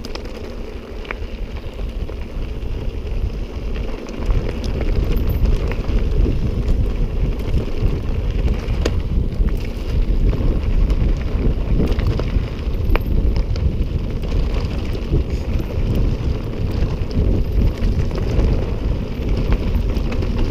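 Wind buffeting the microphone over the rumble of a mountain bike rolling fast down a dirt singletrack. It gets louder about four seconds in as the bike picks up speed, with a few sharp clicks and knocks from the bike over the rough ground.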